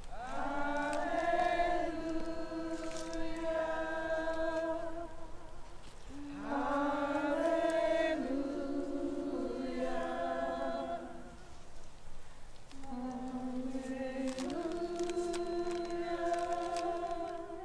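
Women's voices singing together in long, held, wordless notes, in three drawn-out phrases with short breaths between them.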